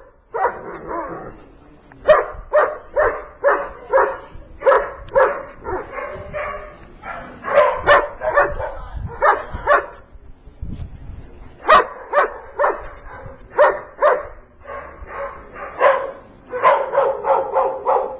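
A dog barking repeatedly in quick runs of several barks, about two to three a second, with short pauses between the runs.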